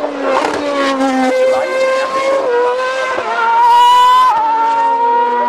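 2013 Formula One cars' 2.4-litre V8 engines running at high revs as they pass through a corner. Several engine notes overlap, and each steps in pitch at the gear changes. The sound gets louder and more hissy about three and a half seconds in.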